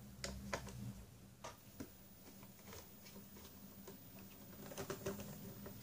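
Faint, irregular small clicks and ticks of a Phillips screwdriver undoing screws in the plastic underside of an ASUS Transformer Book T100 keyboard dock.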